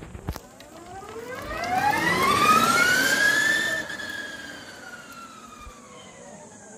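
Electric formula race car's drive motor whining as the car accelerates hard from a standing start, the whine rising steadily in pitch and loudness to a peak about four seconds in. The whine then falls slowly in pitch and fades as the car slows under braking.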